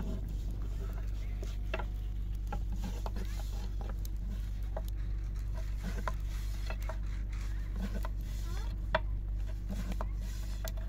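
Scattered light clicks and taps, a few a second and irregular, over a steady low hum.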